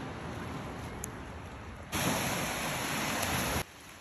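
Steady rushing noise with no pitch. It jumps much louder for under two seconds in the middle, starting and stopping abruptly.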